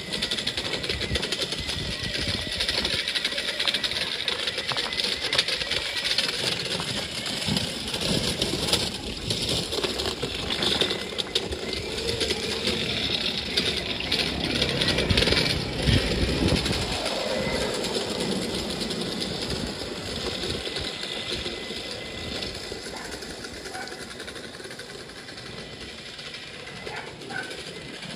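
Small engine of a converted toy motorbike running under way with a rapid, rattly beat, fading steadily in the last third as the bike rides off.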